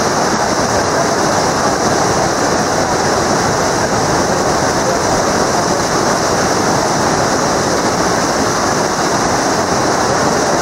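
Loud, steady rush of whitewater rapids in an artificial slalom channel.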